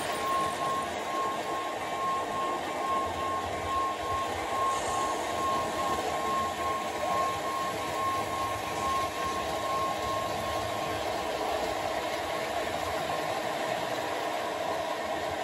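Model trains running on a layout: a steady mechanical hum and rumble, with a thin steady high tone that fades out about ten seconds in.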